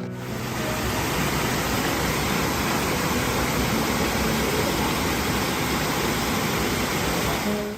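Steady rain falling, an even hiss with no music or voice.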